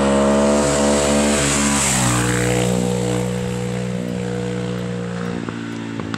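Single-cylinder four-stroke supermoto motorcycle engine held at steady high revs, its pitch dropping about two seconds in. Near the end the steady note fades and gives way to uneven pops.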